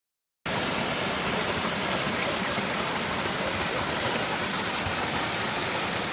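Waterfall's steady rush of falling water, starting abruptly about half a second in.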